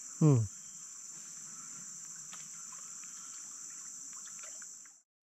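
Steady, high-pitched drone of forest insects that cuts off near the end. About a quarter second in, one short loud sound slides sharply down in pitch.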